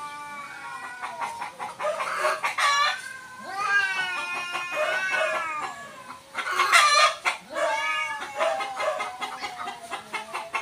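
Two cats yowling at each other in a standoff before a fight: long, drawn-out calls that waver up and down in pitch, overlapping, with a couple of harsher cries.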